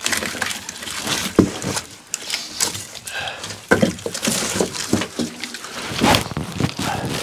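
Split firewood logs knocking and clattering against each other as they are handled and stacked, with irregular sharp knocks and scraping, in a small hard-walled room.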